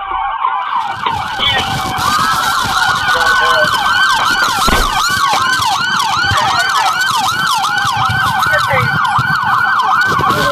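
Police sirens, more than one at once: a slow rising-and-falling wail, joined about two seconds in by a fast yelp sweeping up and down about three times a second.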